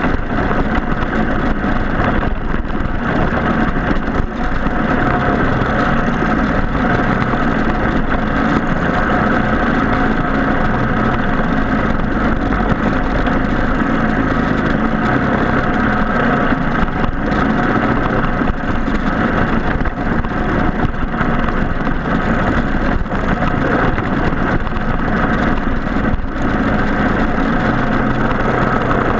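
Racing go-kart with a Briggs & Stratton Animal four-stroke single-cylinder engine, running steadily.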